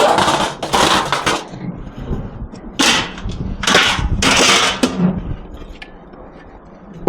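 Pieces of scrap metal clattering and crashing as they are dropped and thrown onto a pile, in about four loud crashes, the last and longest around the middle, then quieter.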